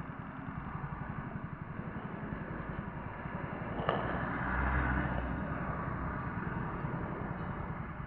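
Motorcycle engine idling with fast, even low pulses amid street traffic. A sharp click comes about four seconds in, followed by a louder low rumble for about a second.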